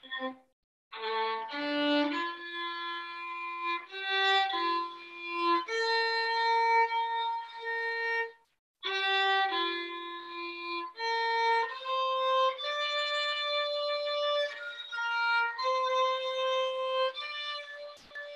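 Solo violin playing a slow melody of held notes, one note at a time, with two short silent breaks, one about a second in and one near the middle.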